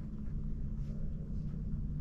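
A low steady rumble, with faint scratching of a pen writing on notebook paper.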